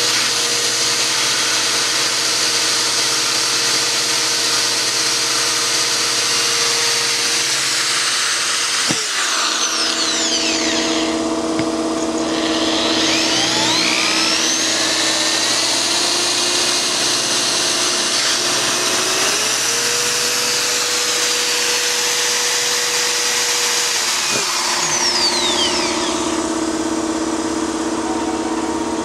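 Corded electric drill running in reverse, its bit cutting through a boat hull's fiberglass gel coat so the gel coat won't crack. The motor whine drops in pitch and picks back up twice, about nine seconds in and again near the end.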